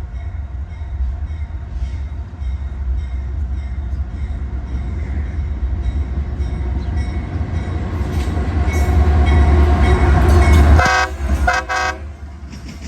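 CSX freight train's lead diesel locomotive approaching, its deep engine rumble growing steadily louder. Near the end it gives two short horn blasts as it passes, and the rumble falls away.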